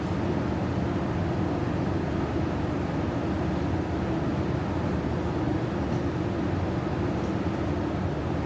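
Steady mechanical drone with a low hum, at an even level and without breaks.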